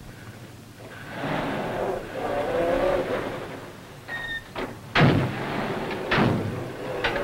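Motor vehicle engine running up and revving with a rough, wavering note, then a brief high beep about four seconds in, followed by three sharp, loud bangs about a second apart.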